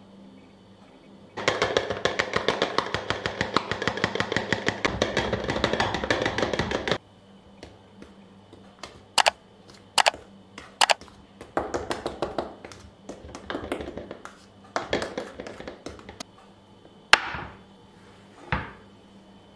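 Dry ingredients poured through a plastic funnel into an empty plastic PET bottle. First comes a long run of fast, even rattling ticks as flour goes through, then a few sharp taps and several short pours. Near the end there is a sharp knock and a dull thud of the plastic bottle and funnel.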